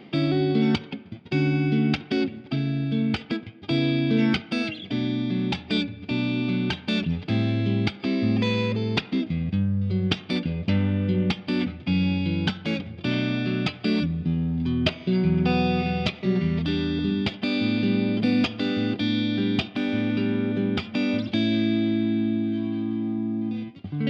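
Squier Affinity Series Stratocaster electric guitar played through an amp: a run of picked notes and chords with moving bass notes, ending on a held chord that rings out near the end.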